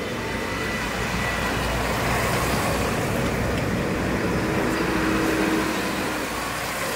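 Diesel engine of a large modern tractor driving slowly along the road, growing louder as it draws near and easing off near the end.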